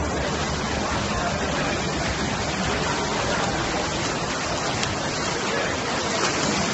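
Steady splashing and churning of water from swimmers racing freestyle, an even rush with no single sound standing out.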